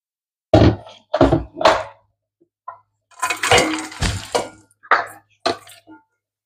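Plastic food processor bowl knocking and clattering against a stainless steel mixing bowl as chopped cranberries are tapped out of it. Three sharp knocks, then a dense clatter, then two more knocks.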